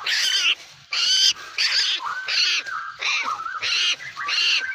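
Asian koel calls repeated in short pitched notes, about one and a half a second, with a second, lower wavering call between some of them.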